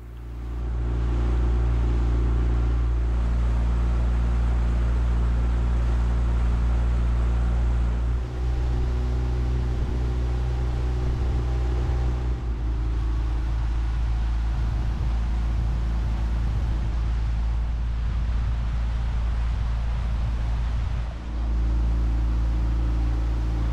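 Honda BF15 four-stroke outboard motor pushing an inflatable boat at a steady cruising speed, a constant low engine drone with the rush of water and air, dipping briefly twice.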